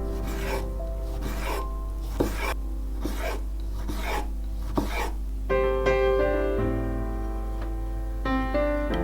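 Rhythmic rasping strokes, about two a second, over background piano music; the strokes stop about five seconds in and the piano carries on alone.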